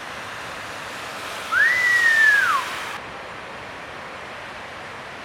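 A single whistle that rises quickly, holds a high note for about a second and drops away at the end. A steady rush of surf runs underneath.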